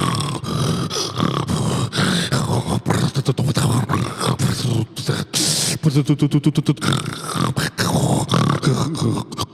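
A person beatboxing, building a fast rhythm out of snoring and snorting sounds: quick percussive mouth and nose hits mixed with pitched, throaty snore-like tones, with a brief hissing breath about five seconds in.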